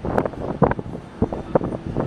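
Strong wind buffeting the microphone in irregular gusts, over a steady low rumble.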